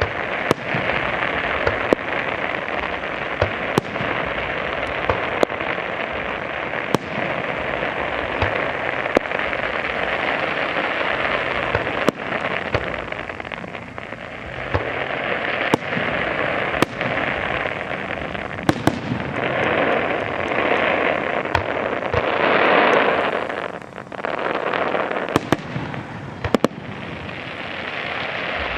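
Aerial fireworks display: many sharp bangs of bursting shells over a continuous dense crackle, swelling loudest a few seconds before a brief lull near the end.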